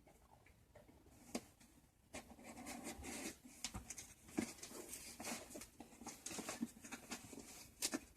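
Hands scratching, picking and tearing at a taped cardboard package: a busy run of small scratches, crinkles and clicks, growing busier about two seconds in.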